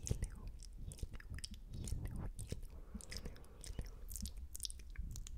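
Close-miked wet mouth sounds for ASMR spit painting: many quick, irregular wet clicks and lip smacks made right at the microphone.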